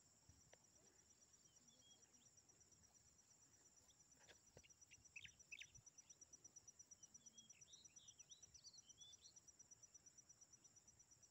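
Faint countryside ambience: a steady, high-pitched insect trill with short bird chirps through the middle.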